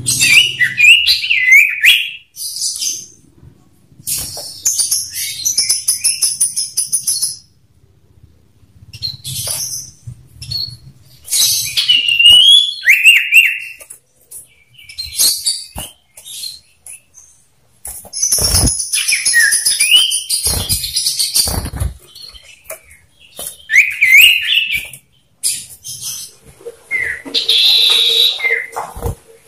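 Common iora calling in bouts: rapid high chattering trills and short, slurred whistles that rise and fall, with brief pauses between phrases. A few sharp knocks come in the middle.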